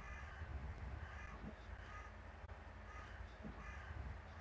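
Faint crow calls, a caw repeated about once a second, over a steady low background rumble.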